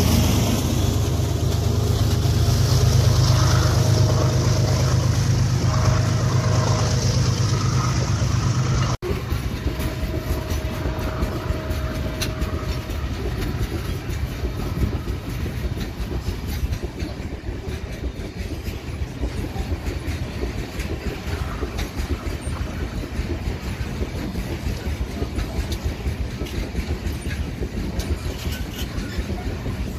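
GE diesel-electric locomotives of a loaded iron-ore train running past close by with a heavy low engine drone. After a sudden cut about nine seconds in, loaded ore hopper cars roll steadily past with wheel clickety-clack over the rail joints.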